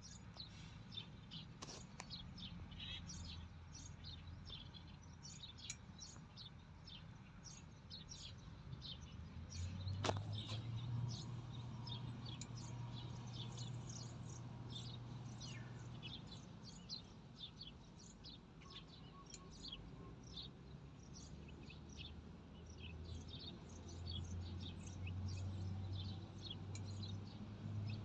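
Many small birds chirping, several short high calls a second throughout, over a faint low hum. A single sharp click comes about ten seconds in.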